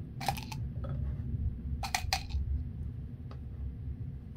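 Low rumble of distant thunder rolling under a handful of light clicks and knocks of small tools being handled on a table, the clicks coming near the start and around two seconds in.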